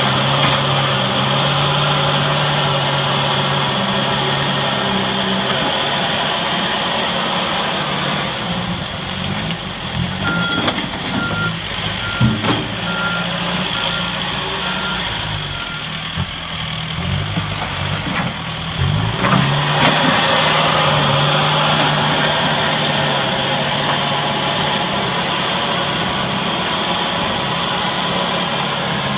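Backhoe engine running, its note steady, then uneven with a few knocks through the middle stretch. A reversing alarm beeps about seven or eight times in a row partway through.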